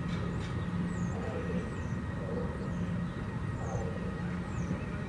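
Outdoor ambience in a pause between siren voice messages: a steady low rumble, with a faint distant voice announcement from other sirens across town and a few short, high, falling chirps.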